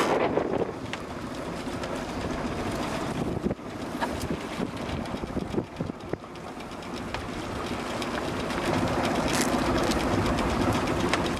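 Wind buffeting the microphone and water rushing past the hull of a sailing yacht under way at speed, with a few light knocks. The rush grows louder in the second half.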